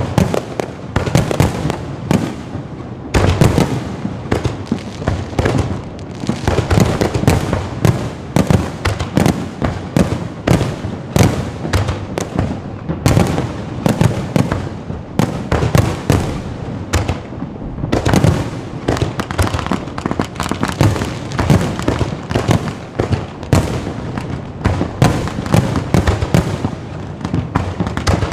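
Fireworks display: a dense, continuous barrage of overlapping bangs, many a second, with no let-up.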